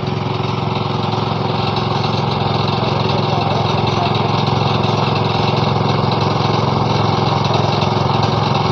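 Small petrol engine running steadily at a constant speed.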